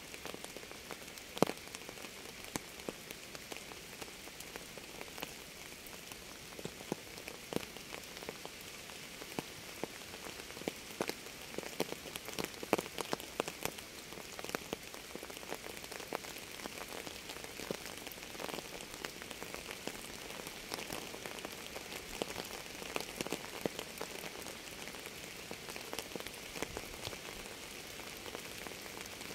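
Steady rain: a constant hiss of falling rain with many separate drops ticking irregularly close to the microphone, one louder drop about a second and a half in.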